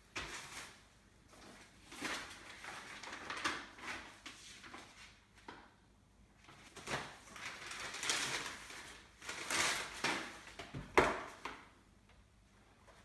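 Sheets of paper rustling and items being shifted about on a table, in irregular bursts, with one sharp knock near the end.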